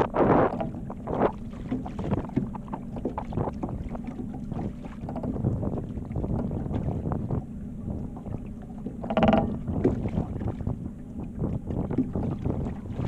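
Wind buffeting the microphone and choppy water slapping against the side of a fishing boat, with scattered knocks. A short buzzing tone comes about nine seconds in.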